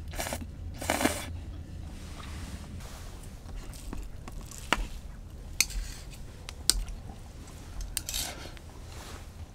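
Eating utensils scraping and clicking against a dish: two short scrapes in the first second, then single sharp clicks about once a second and a last scrape near the end.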